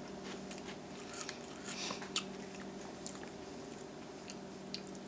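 A person chewing a mouthful of Little Debbie Oatmeal Creme Pie cereal puffs, with small, irregular crunches.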